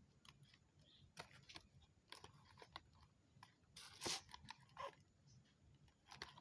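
Quiet handling of packaging: scattered small crinkles and clicks of plastic wrap and a box being opened, with a louder rustle about four seconds in.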